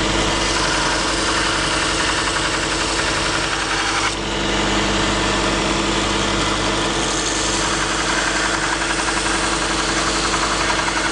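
Robert Sorby Pro Edge belt sharpener running, its motor humming steadily while a skew chisel blade, held in a jig, is touched against the moving abrasive belt with a gritty grinding hiss. The tone of the hum shifts about four seconds in.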